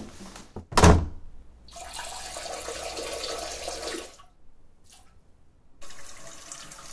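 A sharp thump about a second in, then a few seconds of rushing noise. From about six seconds in, a kitchen tap runs into a sink while dishes are washed.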